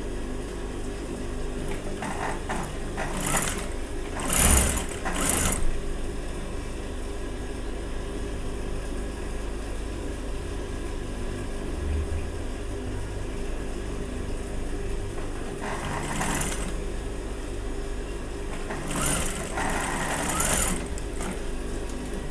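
Industrial lockstitch sewing machine sewing a seam in cotton gingham fabric, its motor humming steadily, with several short runs of stitching; the loudest is about four to five seconds in, and more come near the middle and towards the end.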